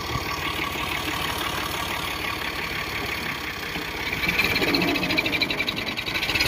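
Farm tractor's engine running under load while it hauls a loaded trolley through deep mud. It gets louder and harsher about four seconds in.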